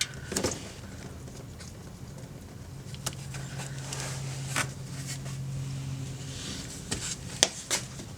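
Engine oil draining from the drain-plug hole into a drain pan, with a few sharp clicks and a steady low hum for about three seconds in the middle.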